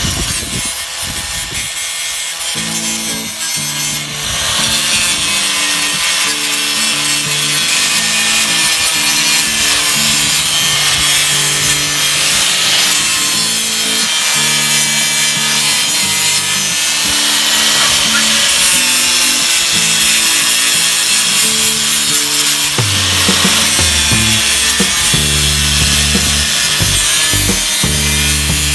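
Continuous abrasive rubbing from work on the car's rusty bodywork, over background music with a stepping bass line.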